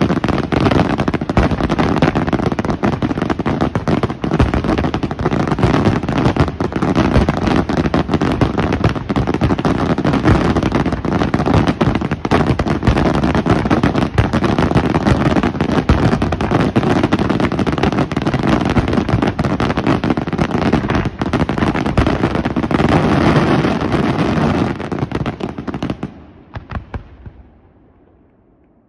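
Aerial fireworks display: a dense, continuous barrage of shell bursts and crackling. About 25 seconds in it dies away, with a few last scattered pops.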